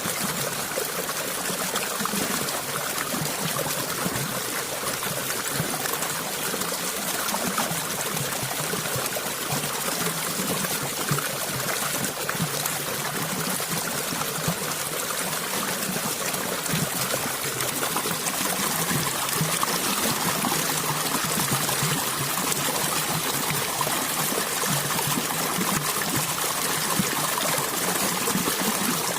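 Stream water flowing and trickling steadily, with small splashing and gurgling over stones.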